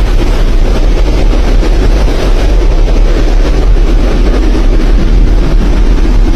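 Loud, steady roaring rumble of strong wind buffeting the microphone, heaviest in the low end and unbroken throughout.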